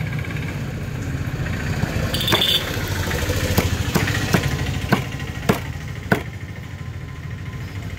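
A knife chopping raw chicken on a wooden stump block: about seven sharp knocks between two and six seconds in, over a small engine idling steadily in the background.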